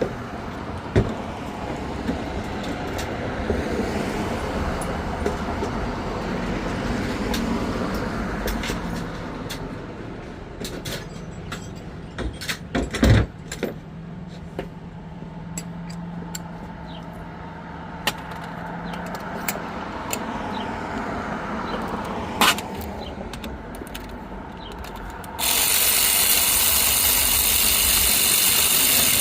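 Steady background of road traffic, broken by a few sharp metallic clicks and knocks. About 25 seconds in, it switches abruptly to a loud, even hiss.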